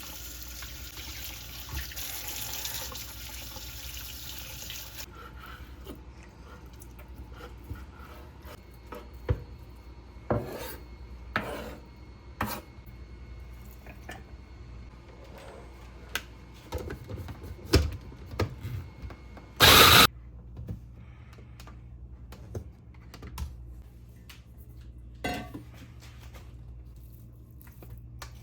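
Kitchen tap running into a sink for about five seconds, then scattered knocks and clinks of dishes and utensils being handled, with one loud, short noise about twenty seconds in.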